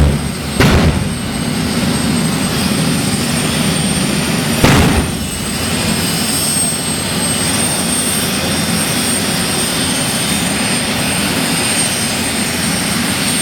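Jet engine of a jet-powered drag race car running steadily, a roar with a high, steady whine, with two short loud bursts, about half a second in and about five seconds in.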